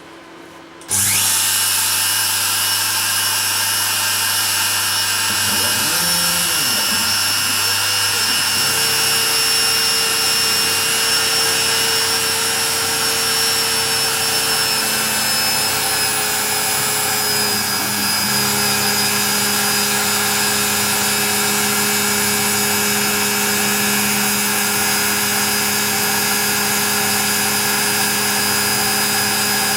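Makita router on a CNC machine switched on about a second in and running loud and steady, with a high whine. A few lower tones shift in pitch between about six and nine seconds in.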